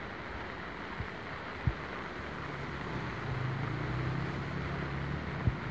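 Floodwater rushing steadily across a road, with a vehicle engine humming in over it from about two seconds in and fading near the end. A few brief low thumps, the loudest a little under two seconds in.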